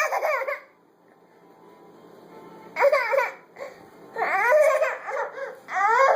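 Toddler fussing in high-pitched, wavering vocal bursts, four of them with a pause after the first: he is protesting at being kept out of the fridge.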